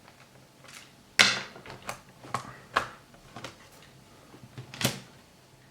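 Plastic clicks and scrapes of a laptop's bottom service cover being worked loose and lifted off: one sharp snap about a second in, then several lighter clicks.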